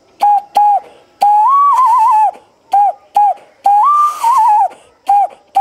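Hand whistle blown through cupped hands to imitate a bird call: two short hooting notes, then a longer note that rises and warbles. The phrase goes twice, with two more short notes near the end.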